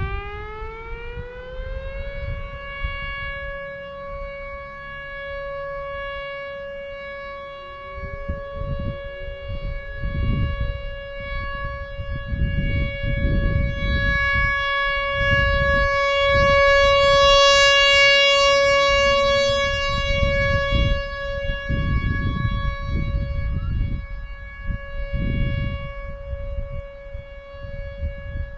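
Whelen Vortex R4 rotating outdoor warning siren sounding its steady Alert signal. It winds up in pitch over the first two seconds, then holds one steady tone. The tone swells loudest around the middle and fades back as the rotating head sweeps past.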